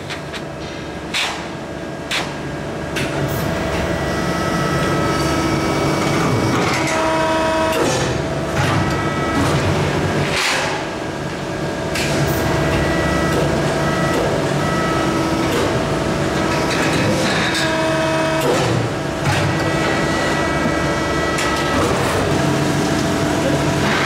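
Large 300-ton, 4-metre hydraulic press brake running while bending long steel sheet, a steady machine sound with held tones and a few sharp metallic knocks.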